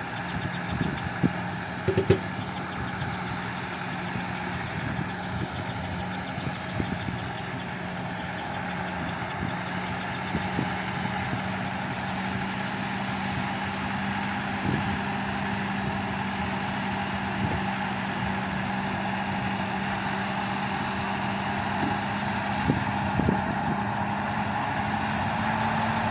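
Engine of a six-wheeled all-terrain vehicle running at a steady pitch while the vehicle is pulled slowly out of deep mud on a cable. A couple of sharp knocks come about two seconds in, and the pitch edges up slightly near the end.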